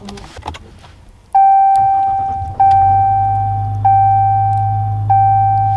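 The truck's push-button start is pressed with a soft click. About a second later the dashboard warning chime sounds four times, evenly spaced about a second and a quarter apart, each tone fading. A low steady hum runs underneath.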